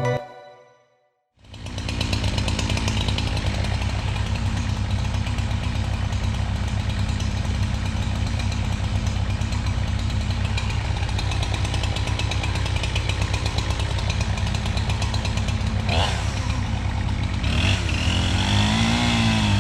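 Chainsaw engine running steadily at speed, starting about a second in after a short silence, with a click and some rising and falling pitch sweeps near the end.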